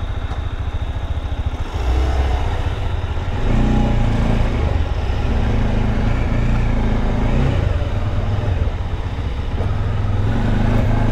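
Motorcycle engine running at low speed as the bike pulls away, its revs stepping up about two seconds in and again a little before four seconds.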